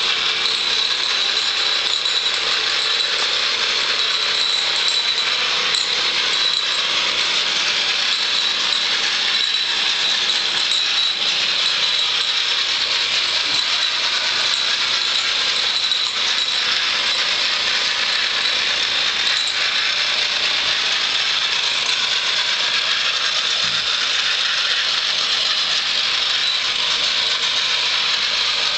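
Wilesco D365 'Old Smokey' live-steam model steam roller running steadily as it rolls across a tile floor: a continuous dense mechanical rattle from its little steam engine and gearing.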